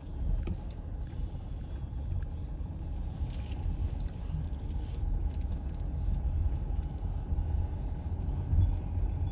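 A car rolling slowly along a concrete lane, heard from inside the cabin: a steady low rumble of engine and tyres, with light clicks and rattles scattered through it.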